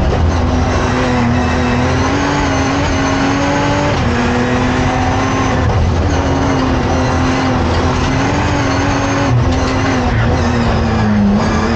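BMW 1M hillclimb car's engine running hard under load, heard inside the cabin. The engine note holds high with small pitch steps and a few short dips as the car changes gear, going from third down to second.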